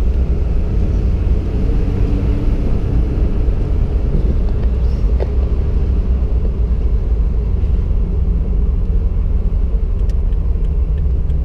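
Steady low rumble of a car driving along a road, heard from inside the cabin: engine, tyre and wind noise.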